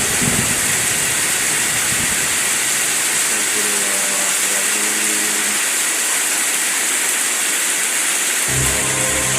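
Heavy wind-driven rain: a steady, loud hiss. A low pulsing hum comes in near the end.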